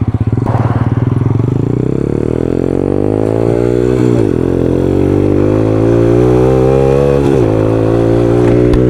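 Yamaha R6 inline-four sport motorcycle pulling away from low revs and accelerating, the engine note rising steadily, dropping at an upshift about four seconds in and again about seven seconds in, then climbing again.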